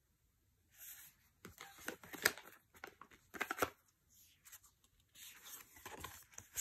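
Tarot cards handled and flipped one after another: card stock sliding and rubbing with soft swishes, broken by a few sharp snaps as cards are turned.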